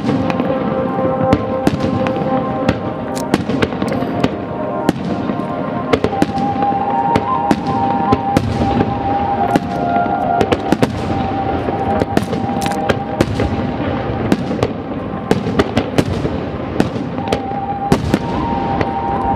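Fireworks finale barrage: a dense, continuous run of sharp bursts and crackling reports, over music with long held notes.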